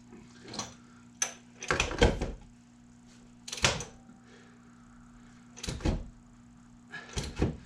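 Separate clanks and knocks of hand tools on the engine during belt work, about six in all, some as quick rattling doubles, over a faint steady low hum.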